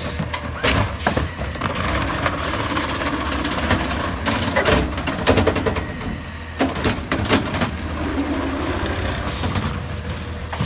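Autocar ACX garbage truck working its McNeilus ZR automated side-loader arm: the engine runs steadily under the hydraulics while the arm grips a trash cart, lifts and tips it into the hopper, and sets it back down. Clanks and knocks from the cart and falling trash come thickest in the middle.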